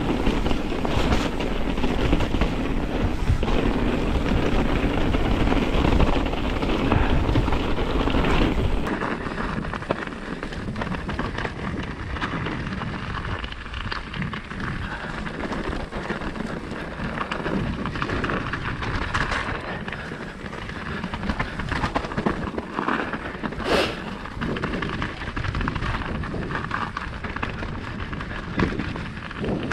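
Mountain bike riding down a dirt forest trail, heard from an action camera on the bike or rider: wind rushing over the microphone and tyres rolling on dirt make a steady rumbling noise, with the bike rattling and knocking sharply over bumps. The rumble drops somewhat about nine seconds in.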